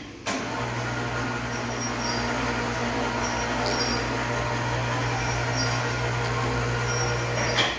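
Electric winch hoist of a steel motorcycle lift platform running steadily with a low hum as it lowers the platform. It starts abruptly just after the beginning and cuts off near the end.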